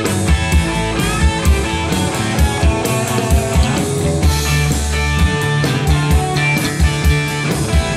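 Live rock band playing an instrumental passage: electric guitars and bass over a drum kit keeping a steady beat.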